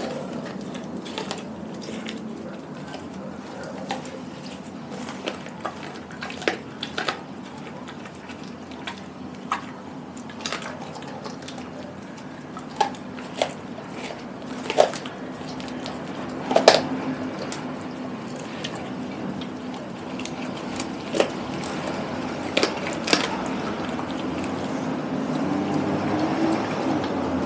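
A Doberman licking and gnawing at a whole raw chicken: wet, sloppy mouth sounds with scattered sharp clicks and snaps from her jaws, over a steady low hum.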